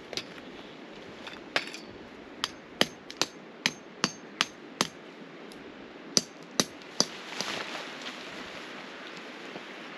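A series of about a dozen sharp strikes, coming in quick runs of two or three a second with a short gap in the middle, followed by a brief rustle.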